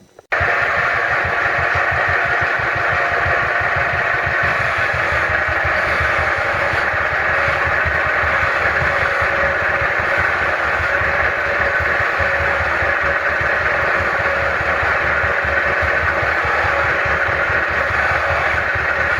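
A machine running steadily, starting abruptly with a fast, even low pulsing under a continuous mid-range whirr.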